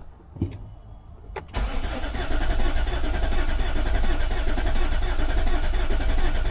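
2015 Infiniti QX80's 5.6-litre V8 cranking over on the starter motor, with a battery maintainer connected for full battery power. The cranking starts about a second and a half in, after a couple of clicks, holds a steady even rhythm, and stops suddenly after about five seconds.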